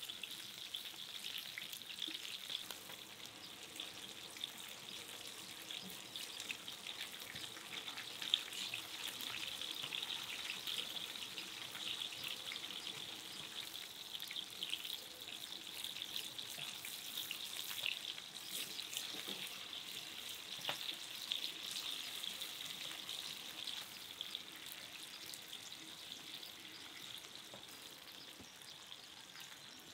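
Food frying in hot oil in a pan: a steady sizzle dotted with many small crackles and pops, easing off a little near the end.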